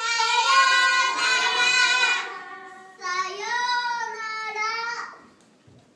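A group of young children sings two short phrases together. The first ends about two seconds in, and the second starts a second later.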